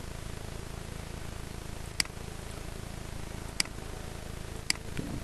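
Three sharp computer mouse clicks, the first about two seconds in and the last near the end, over a steady low background hum.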